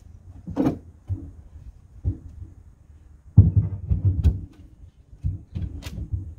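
Plywood panels knocking and thumping against the wooden hull as they are handled and stood in place: scattered knocks, a cluster of heavier thumps about halfway through, and a sharp knock near the end.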